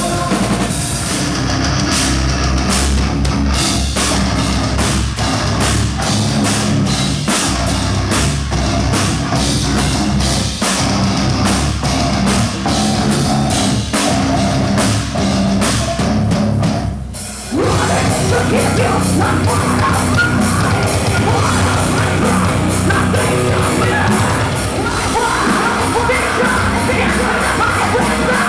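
Heavy metal band playing live and loud, driven by a pounding drum kit. About two-thirds of the way through there is a brief break, and then the full band comes back in denser.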